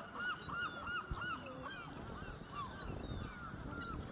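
A flock of seagulls calling, many birds at once: a rapid run of short rising-and-falling cries that overlap, densest in the first couple of seconds and thinning after.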